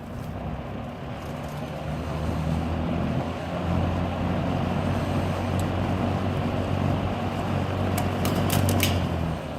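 Vintage Happy Home model 201044 box fan running on high: a steady motor hum under the rush of air from the blades, growing louder over the first few seconds as the motor speeds up, then holding steady. A few short clicks near the end.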